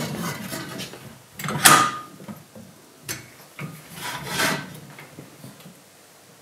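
Roller stand being adjusted by hand: a few clunks and sliding scrapes of its parts. The loudest is a clank with a short ring about a second and a half in, followed by two lighter knocks and a longer scrape.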